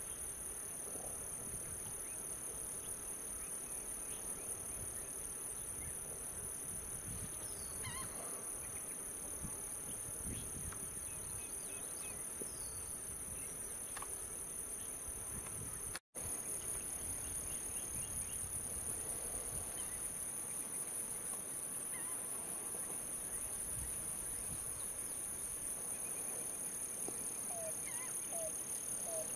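Steady, high-pitched buzzing of a summer insect chorus, unbroken except for a momentary dropout about halfway through.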